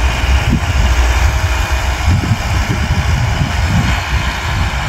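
Diesel engine of a Kubota M6040 tractor running steadily under load as it pulls a ridging implement through dry soil, heard as a continuous low rumble.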